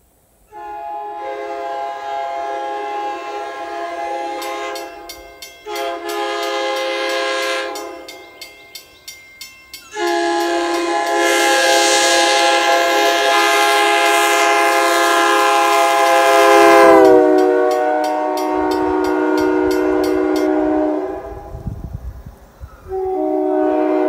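Nathan Airchime K3L three-chime train horn, a 1980s MBTA wide-font horn, blowing on air at 120 psi. It sounds a steady chord in four blasts: a five-second blast, a short one, a long blast whose chord sags slightly lower partway through, and another starting near the end.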